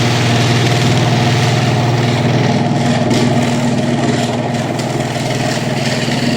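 Garage door opener motor running steadily as it drives the door closed, a continuous low hum with the rattle of the moving door.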